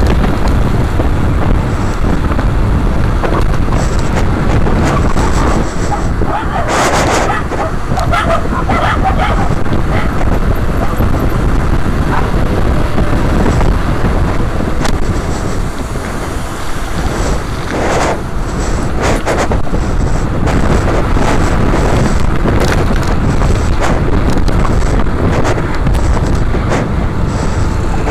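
Wind buffeting the microphone of a camera riding on a moving mountain bike: a loud, steady rumble, broken by a few short knocks partway through.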